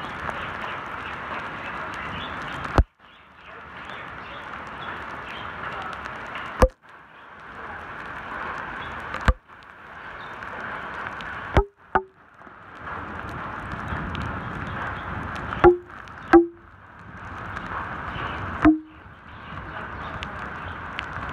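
Heavy rain falling on a flooded road: a steady hiss of drops splashing on wet asphalt. About every two to three seconds there is a sharp knock, and each knock is followed by a brief drop in the sound that fades back in.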